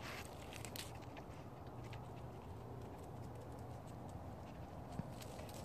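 Footsteps on pavement, with a few sharp clicks in the first second and another about five seconds in, over a steady low background rumble.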